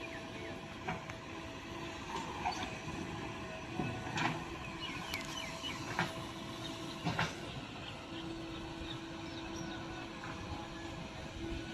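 JCB 3DX backhoe loader running as it digs and loads soil, with a steady engine hum that comes and goes and several sharp knocks and clanks spread through it.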